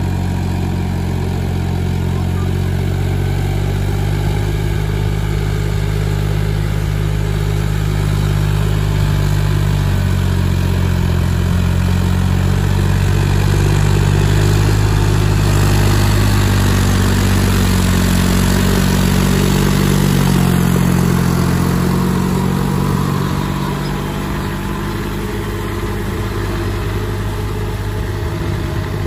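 Farmtrac 6050 4WD tractor's diesel engine running steadily while it pulls a rotavator through flooded mud. It grows louder as the tractor comes close about halfway through, then drops a little in the last few seconds as it moves away.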